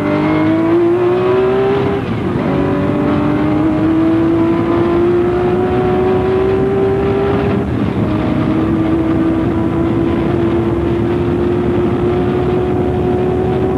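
Porsche 936 race car's turbocharged flat-six heard from the cockpit, accelerating hard out of a slow corner: the engine note climbs steadily and drops sharply at two upshifts, about two seconds in and again near eight seconds in.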